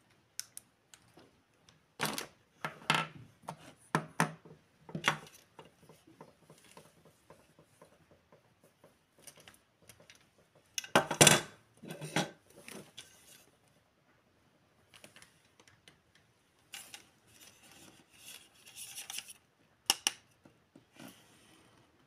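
Small plastic toys being handled: irregular clicks and taps of plastic on plastic and on the table, the loudest cluster about halfway through, with softer rustling near the end.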